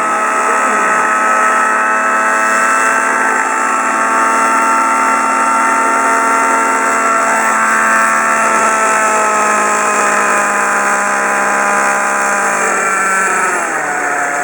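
T-REX 700N nitro RC helicopter's glow engine and rotor running at a steady pitch, then dropping to a lower pitch near the end as the throttle comes down. Its muffler is loose from a missing mounting screw, the cause of the abnormal noise that made the pilot land.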